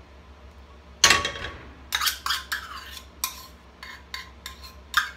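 A metal spoon scraping and knocking against a metal measuring cup and saucepan while scooping butter into the pan: a loud clatter about a second in, then a run of short clinks and scrapes.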